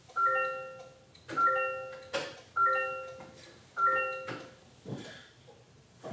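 Toyota Corolla's interior warning chime ringing four times, about once every 1.2 seconds, each ding fading out, then stopping. A couple of short knocks follow near the end.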